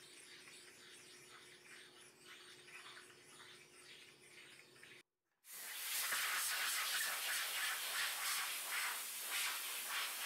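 A flat block rubbed back and forth across a steel milling-machine table, a dry scraping hiss. It is faint at first, then much louder after a sudden break about five seconds in.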